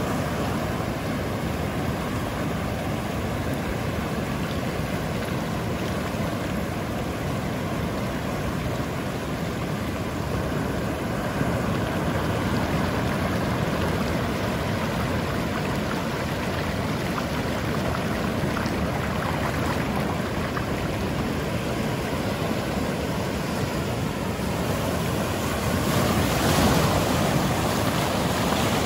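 Ocean surf on a sandy beach: a steady wash of breaking waves, with one wave breaking louder near the end.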